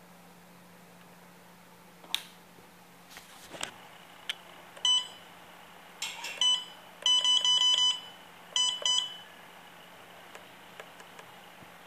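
Siemens KTP900 Basic HMI touchscreen giving short electronic beeps as a stylus taps it: a single beep, another, then a quick run of about six, then two more. Two sharp knocks come before the beeps.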